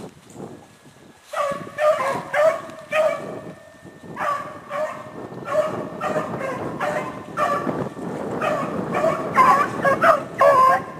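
Pack of beagles baying as they run a cottontail rabbit's trail: a steady string of short pitched calls beginning about a second and a half in, about two a second, with several dogs overlapping near the end.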